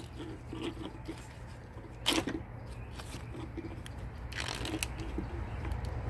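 Corrugated plastic wire loom and an oily wiring harness rustling and crinkling as they are handled and pulled apart by hand, with a sharp crackle about two seconds in and a longer scraping rustle a little after four seconds.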